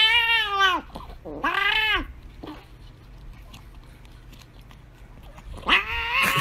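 Cat meowing for a lickable treat: a long drawn-out meow, a shorter one about a second later, and another near the end. Between them come a few seconds of faint clicking as it licks at the squeeze-tube treat.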